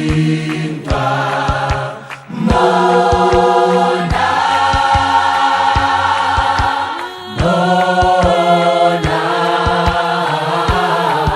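Choir singing a Sesotho gospel song in close harmony, in long held chords. A steady beat of sharp percussive strikes runs under the voices. The singing dips briefly about two seconds in and again about seven seconds in.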